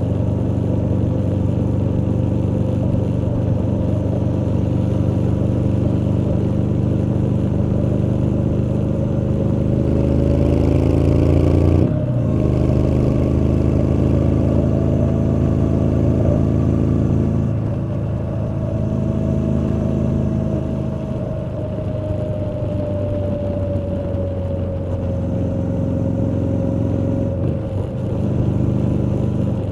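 Exhaust of a 2019 Triumph Street Scrambler's 900 cc parallel twin under way at road speed. The note climbs and grows louder as the rider accelerates, breaks off for a moment near the middle, then slowly falls and quietens as the throttle eases.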